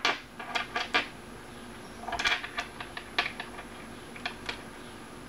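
Small metal parts of an IGO-F rebuildable dripping atomizer clicking and scraping as they are fitted and screwed together by hand: a scatter of light ticks, with a short rustling run about two seconds in.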